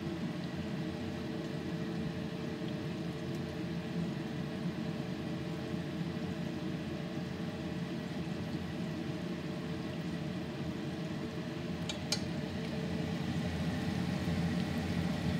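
Cream cheese wontons frying in hot oil in a skillet: a steady sizzle and bubble with a low hum under it, getting slightly louder near the end. A couple of light clicks come about twelve seconds in.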